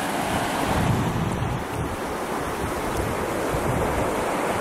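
Fast floodwater in a swollen river rushing and churning over rocks and a submerged crossing, a steady rushing noise. Wind buffets the microphone with an uneven low rumble.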